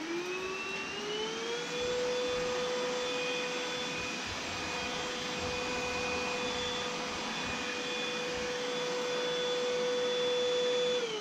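Proscenic P8 cordless stick vacuum running on max mode over a low pile rug. Its motor whine climbs in pitch as it spins up over the first couple of seconds, then holds a steady high whine with a rushing hiss of suction. Near the end the motor shuts off and the whine falls as it winds down.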